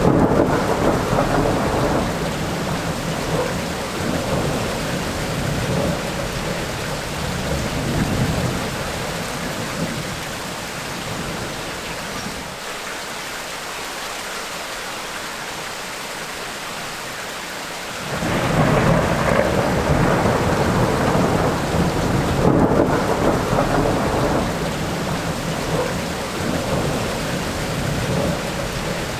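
Thunderstorm: steady rain hissing, with rolling thunder rumbling at the start and dying away about a third of the way in. After a spell of rain alone, a new peal of thunder breaks in suddenly past the middle and rumbles on.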